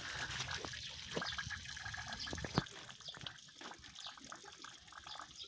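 Water pouring out of a PVC overflow pipe at the base of a plastic basin pond and splashing onto the ground, growing fainter about halfway through. This is the overflow draining off the excess until the water inside falls to the pipe's set height, where the flow stops.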